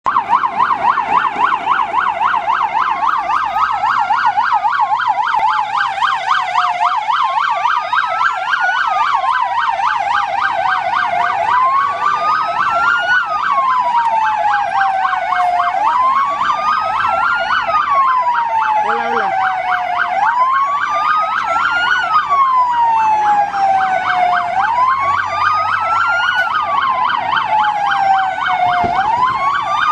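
Two emergency-vehicle sirens sounding at once: one on a fast yelp, the other on a slow wail that climbs and falls about every four and a half seconds.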